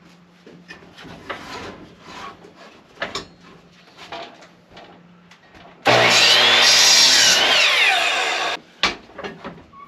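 Ryobi sliding miter saw cutting a wooden board: about six seconds in the motor starts loud and the blade runs through the cut for just under three seconds, then cuts off suddenly. Before it, light knocks and rubbing as the board is handled on the saw.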